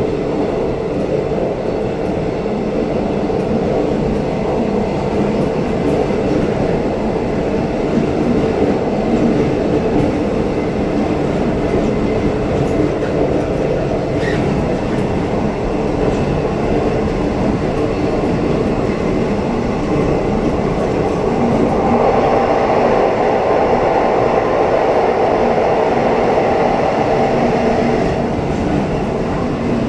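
Electric passenger train running at speed, heard from on board: the steady noise of wheels on rails. It grows louder and fuller for several seconds near the end while the train passes through a tunnel.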